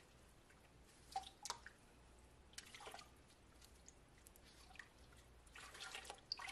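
Faint drips and small splashes of dye water falling back into a stainless steel stock pot as wet wool yarn skeins are lifted and worked along their zip ties. A few single drips come in the first half, and a short cluster of light splashes comes near the end as the yarn goes back into the water.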